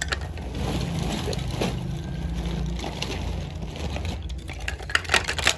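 Handling noise: rustling over a steady low hum, with a few light clicks and knocks near the end.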